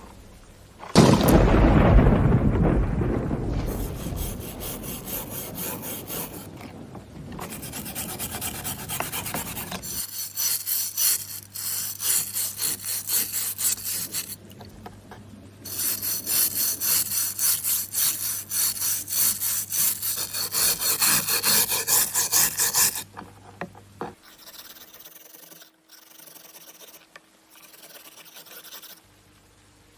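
Rhythmic back-and-forth scraping strokes of hand work on a knife blade, like filing or sanding, at about two strokes a second. About a second in comes a loud, sudden rumbling crash that fades over a few seconds.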